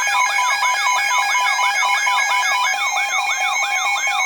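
Electronic siren-style alert tone: a rapidly repeating rising sweep, about three a second, over several steady beeping tones.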